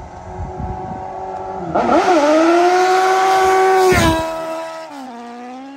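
A vehicle engine revs up sharply and holds at high revs for about two seconds, then drops back and settles to a lower, steady pitch.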